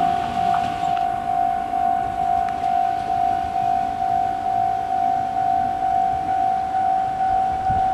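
Japanese level-crossing warning bell ringing, one electronic tone repeating about twice a second, while the EV-E801 battery train runs in, its running noise fading in the first second.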